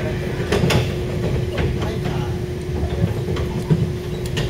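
Passenger train running, heard from inside the carriage: a steady low rumble with a constant hum and a few sharp clicks from the wheels and track.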